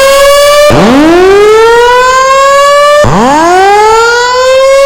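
Fire alarm voice-evacuation system sounding its loud whoop tone between spoken messages: a rising sweep that climbs quickly and then levels off, repeating about every two and a half seconds. It signals that the building is to be evacuated.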